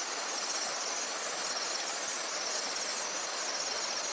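Insects trilling steadily in a fast, even, high-pitched pulse over a constant hiss.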